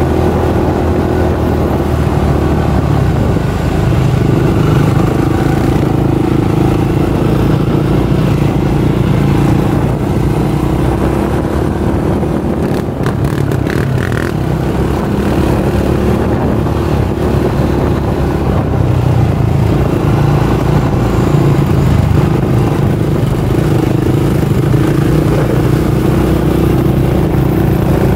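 A motor vehicle's engine running steadily, with a brief clatter about 13 seconds in.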